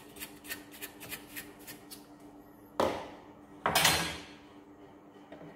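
Light scratching ticks from work inside a stripped-down Canon LBP2900 laser printer, then two sharp clattering knocks about a second apart, the second ringing on a little longer, as hard tools and parts are handled on the workbench.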